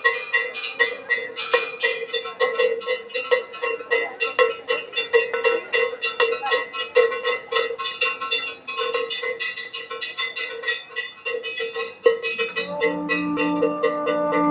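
A metal bell struck in a fast, steady rhythm as part of live percussion music for a dance. Near the end a long held note from another instrument joins it.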